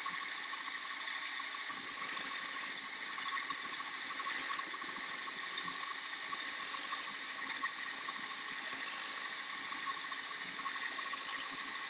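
Wood lathe running with a steady high whine while a cot leg spins and is worked on it, with a continuous scraping hiss from the wood.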